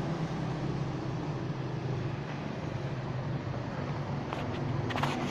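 Granite stone-cutting machine running steadily, a low hum over an even hiss. A few sharp clicks come about four to five seconds in.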